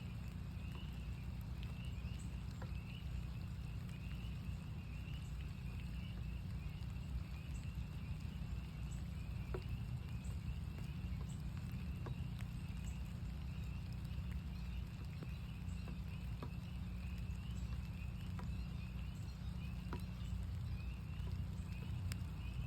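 A chorus of northern spring peepers: many short, high peeps repeating without a break. Scattered sharp drips of rain fall through it over a steady low rumble.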